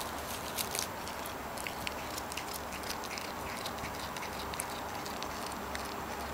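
A cat biting and chewing blades of cat grass: quick crisp crunching clicks, dense over the first few seconds and thinning out toward the end.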